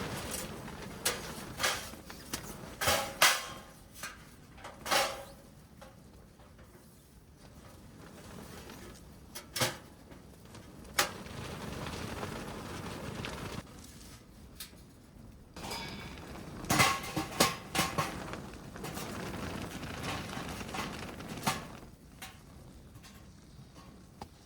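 Irregular knocks and clattering of hard objects being handled, a few with a brief ringing tone, in clusters near the start and about two-thirds of the way through, over a steady background hiss.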